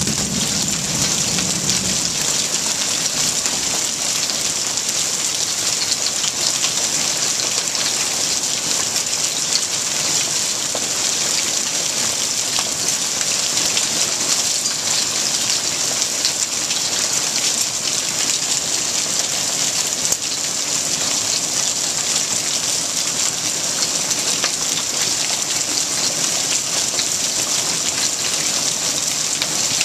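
Small hailstones pelting a concrete pool deck and the pool's surface: a dense, steady patter of countless tiny hits over a continuous hiss.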